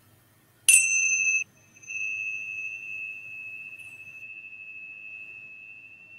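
A pair of tingsha cymbals struck together once, early on. Their bright, high ring drops out for a moment, then rings on and fades slowly.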